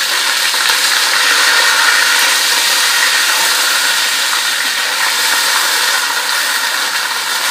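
Loud, steady sizzling from a pot of hot oil with browned onion and whole spices (cinnamon, cloves, black peppercorns, cumin seeds) frying in it.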